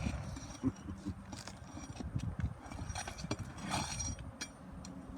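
Scattered knocks and taps with a short scraping crackle a little before the end, the sound of asphalt roof shingles being pried and worked loose by hand and tool.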